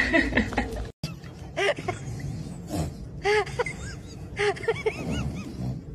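A short noisy burst right at the start. About a second in comes a string of short, high, rising-and-falling yelping howls from a puppy, repeated every half-second to a second.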